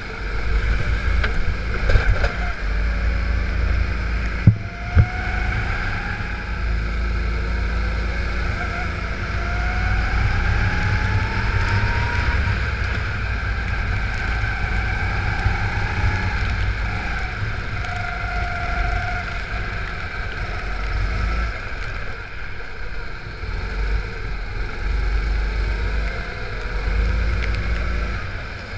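Go-kart engine heard from onboard, running continuously and rising and falling in pitch as the kart accelerates and slows through the corners, over a heavy low rumble. A few sharp knocks in the first five seconds.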